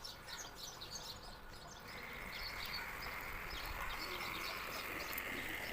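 Faint birds chirping, many short calls, with a steady high-pitched hum joining about two seconds in.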